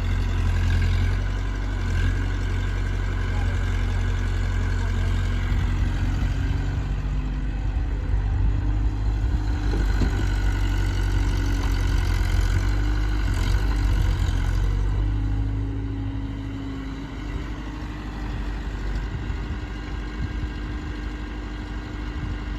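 Diesel engine of heavy earth-moving and farm machinery running, louder through the first two-thirds and then settling quieter and steadier, close to idle.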